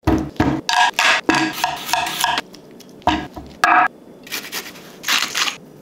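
Kitchen knife cutting a row of thin slits into a raw potato on a wooden cutting board for hasselback potatoes: a quick run of crisp cuts, then two more after a short pause.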